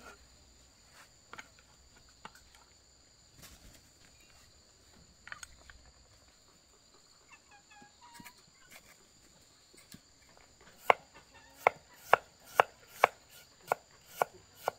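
Knife chopping on a cutting board: a few scattered knocks, then near the end a steady run of chops, about two a second.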